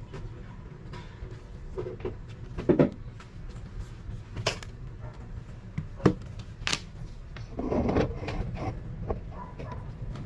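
Scattered clicks and knocks of objects being handled on a hard surface over a low steady hum, with the sharpest knocks nearly 3 seconds and about 6 seconds in.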